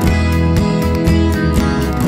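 Background music: an upbeat track with strummed guitar over a steady beat.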